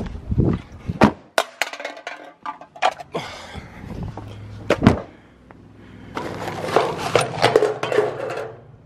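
Knocks and clatter of scavenged river junk, cans and a plastic toy car, being handled and tipped out of a bag onto a picnic table: a string of sharp knocks, then a denser rattle of things landing about six seconds in.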